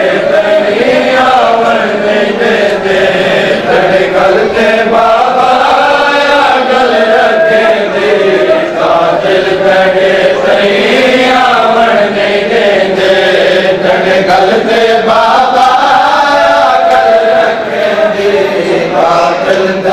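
Male voices chanting a noha, a Shia mourning lament, in a slow melody that rises and falls, with long held notes.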